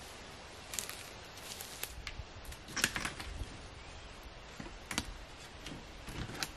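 Wooden sticks knocking and clattering together as they are handled and stood in a bucket: scattered sharp clicks, the loudest cluster about three seconds in.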